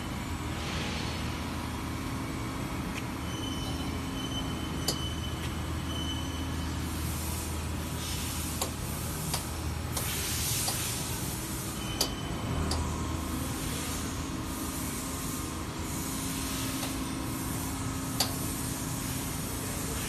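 Spiral orbit bending machine running steadily while it rolls a metal profile through its rollers into a curved ring: a low motor hum with a hiss that swells now and then, and a few sharp clicks.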